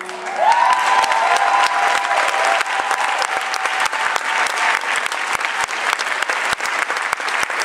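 Audience applauding, with a few held cheers rising over the clapping in the first few seconds.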